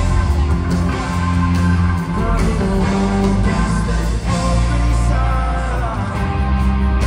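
A live rock band playing through a large PA: electric guitar over heavy bass and drums, heard from the crowd in a big hall.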